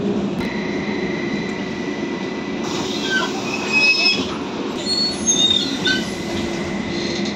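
Interior of a Trolza-6206.00 trolleybus coming to a stop and opening its doors: a steady electrical hum from the drive with a thin high whine that drops out for a couple of seconds in the middle. Brief high squeals and knocks come around the middle, as the bus halts and the doors open.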